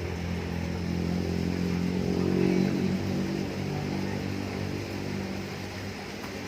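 A motor vehicle's engine passing by, a steady hum that swells about two to three seconds in and then fades.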